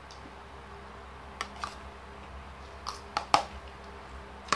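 Eating from a bowl with a metal spoon: about six sharp clicks and clinks, spaced out, with a quick cluster about three seconds in holding the loudest one. A low steady hum sits underneath.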